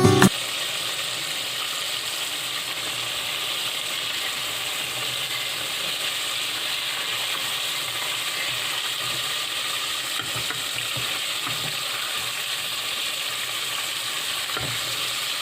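Chicken wings frying in hot oil: a steady, crackling sizzle at an even level.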